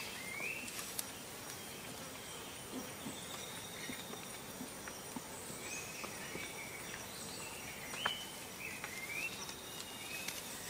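Tropical rainforest ambience: birds giving short chirping calls over a steady high insect drone, with one sharp click about eight seconds in.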